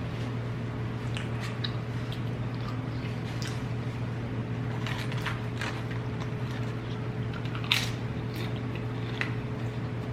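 Close-up eating sounds: chewing with scattered wet clicks and smacks of the mouth, one louder smack about three-quarters of the way in, over a steady low hum.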